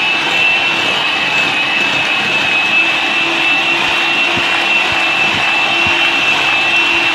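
Electric mixer running at a steady speed with a constant high whine, beating cake batter.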